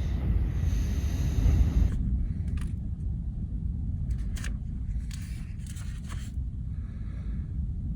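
Strong wind buffeting a camper van: a steady low rumble, loudest in the first two seconds. After that come scattered short knocks and rattles.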